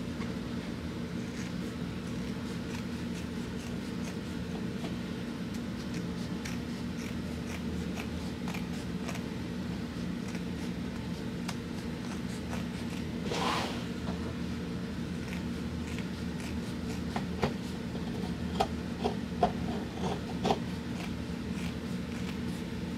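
Scissors snipping through upholstery cloth, trimming the excess off a freshly sewn seam. The snips grow sharper and more frequent in the last third, with a brief swish about halfway, over a steady low hum.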